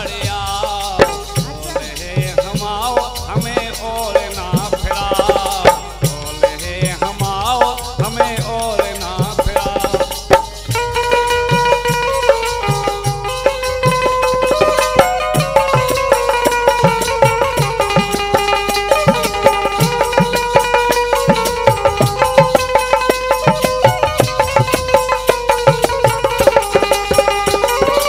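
Instrumental break in a Bundeli folk song: a flute and keyboard melody over a steady dholak drum beat. About ten seconds in, the melody changes from quick, wavering phrases to long held notes.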